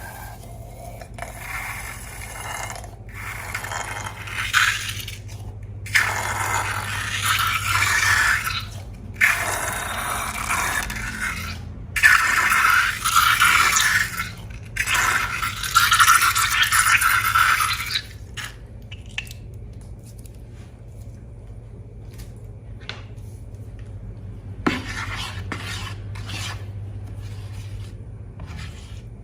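Slime being scraped and stirred in a container, in bursts of a second or two with short breaks. After about 18 seconds it gives way to fainter clicks and scrapes.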